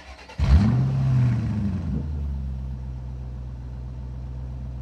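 A car engine starts about half a second in, revs up and back down, then settles into a steady idle.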